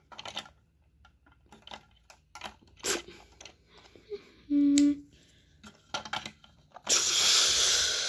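Light clicks and taps of plastic Duplo figures being set into a plastic toy truck, with a short low hum near the middle. From about seven seconds, a loud rattling rush as the truck starts moving.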